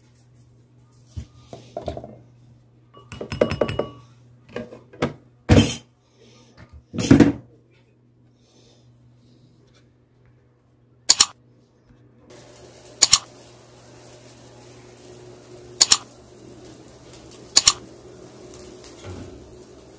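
Kitchen utensils and dishes handled: knocks, clinks and clatter come in an irregular cluster, with two loud hits, and no blender motor runs. In the second half, over a steady low hiss, four single sharp metal clinks come about two seconds apart, from a spoon against a steel bowl of fried chicken.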